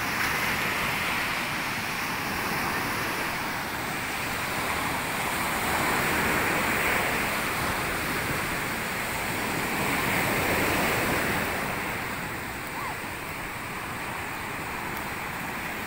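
Ocean surf breaking and washing up a sandy beach, a continuous rushing wash that swells about six and ten seconds in and eases near the end.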